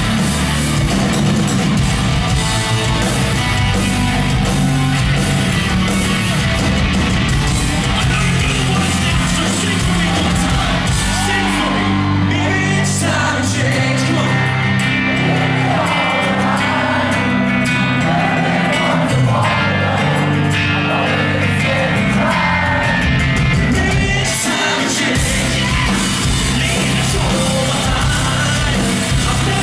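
A rock band playing live, electric guitars, bass and drums, with a lead vocal sung over them, clearest in the middle stretch.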